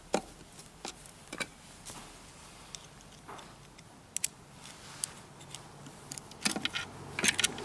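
Scattered light clicks and taps of cabinet hardware and panels being handled while a drawer is fastened together, with a denser run of small clatter near the end.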